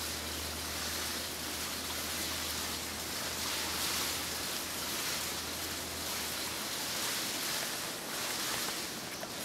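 Steady outdoor noise hiss, swelling and easing every couple of seconds, with a low hum underneath that fades out about seven seconds in.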